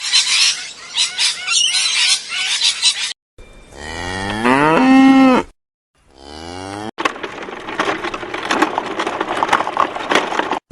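Cow mooing: one long call that rises in pitch and then holds steady, a few seconds in. It sits between abrupt cuts to other noisy, crackling sounds with many clicks.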